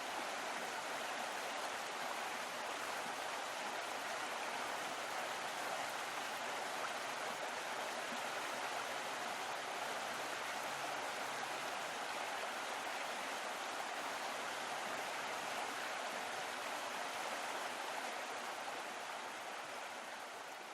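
Steady rushing of flowing water, fading out near the end.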